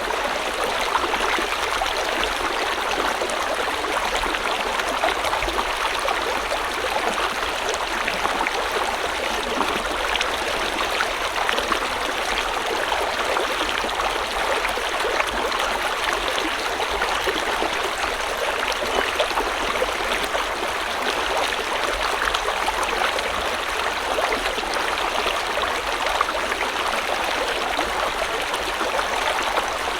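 River water flowing steadily over stones, a constant rushing with fine bubbling and splashing.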